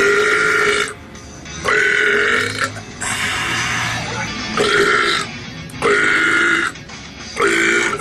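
A man belching on purpose: five loud, drawn-out burps, each under a second long, in quick succession.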